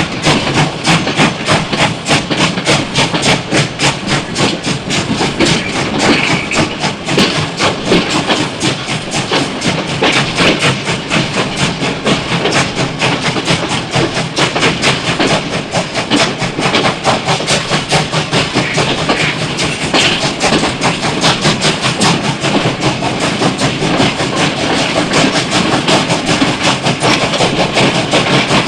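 Steam locomotive running at a steady pace, its exhaust chuffing in a fast, even rhythm of about three to four beats a second over a constant hiss of steam.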